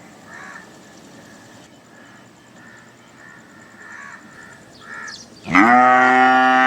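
A cow moos once, loud and drawn out, starting about five and a half seconds in. Before it, a few faint short calls sound in the background.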